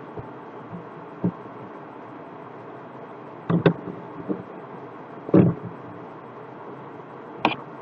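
Steady hiss with a few short sharp clicks, single and in quick pairs, from someone working a computer's keyboard and mouse.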